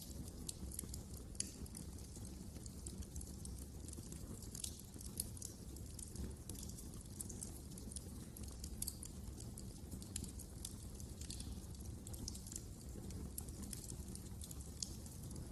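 Wood fire crackling in a fireplace: many small, irregular snaps and pops over a steady low rumble of the burning.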